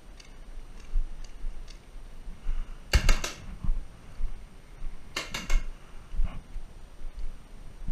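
Paintball marker firing two quick bursts of several sharp pops each, about three seconds in and again about two seconds later.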